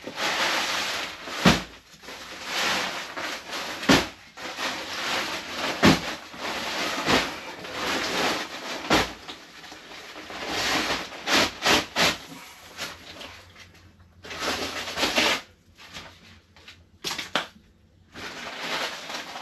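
Heavy paper sugar sack rustling and crinkling as it is handled, in uneven bursts, with several sharp knocks among the rustling.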